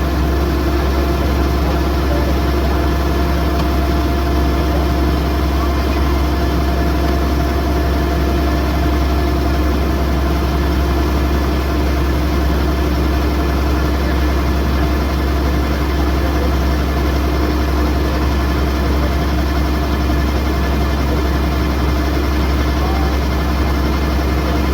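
Kubota DC108X combine harvester running steadily: a constant diesel engine drone with a steady hum that does not change in pitch or loudness.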